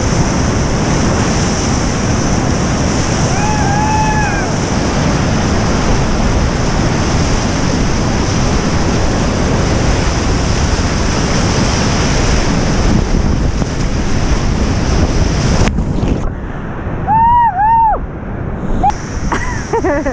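Whitewater rushing around a kayak as it runs a big high-water rapid, with wind buffeting the bow-mounted microphone. Near the end the rush drops to a quieter river sound, with two short high rising-and-falling calls.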